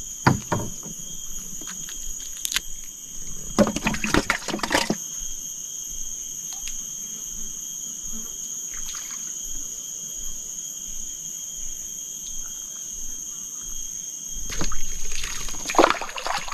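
A steady high-pitched insect drone runs throughout, while water splashes and trickles in several short bursts, the longest around four seconds in and again near the end.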